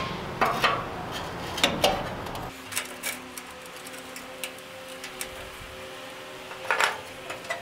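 Fire bricks being handled and set into place in a metal grill box: a string of short knocks and scrapes, brick on brick and brick on metal, with the loudest knock near the end.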